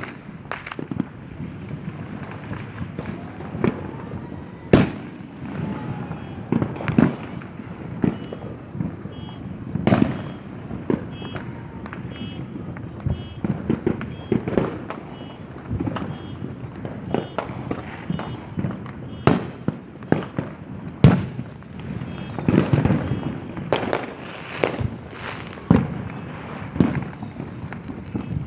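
Fireworks going off for miles around: many irregular bangs and booms, some sharp and close, most farther off, a few every second with no pause.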